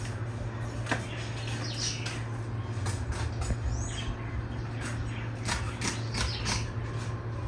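Birds chirping in short, irregular calls over a steady low hum.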